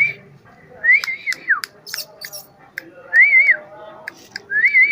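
Someone whistling in short wavering phrases, three times, each rising, holding and falling, with sharp clicks in between, as when calling a dog.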